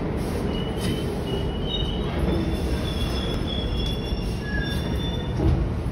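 New York City subway train in the station: a steady low rumble, with thin high-pitched wheel squeals from about half a second in until near the end.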